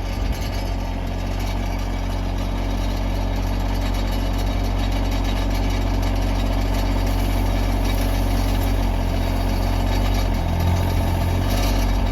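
Tractor engine running steadily, its note shifting briefly near the end.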